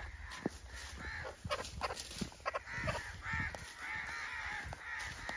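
A chicken held by its legs and wings calling repeatedly in distress, a run of calls starting about a second and a half in, over the thud of footsteps on a dirt path.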